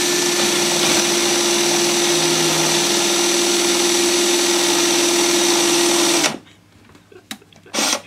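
Cordless drill running at a steady speed, spinning the rotor of a homemade generator built from a speaker magnet and microwave-oven transformer cores; it starts abruptly and stops suddenly after about six seconds. A few small clicks and a short burst of sound follow near the end.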